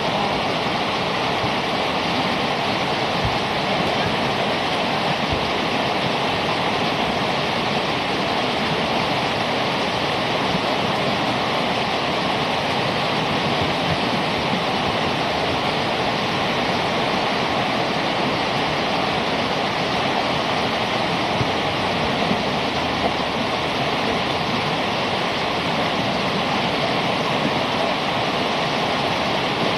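Whitewater rapids rushing in a steady, unbroken roar of water.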